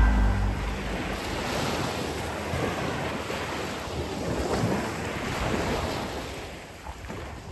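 Sea waves washing in, rising and falling a few times, with wind on the microphone. The last notes of background music die away at the very start.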